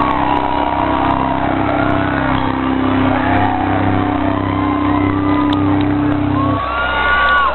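Live rock band holding a final sustained chord through the PA, cutting off about six and a half seconds in, with the outdoor crowd screaming and whooping over it and cheering after it ends.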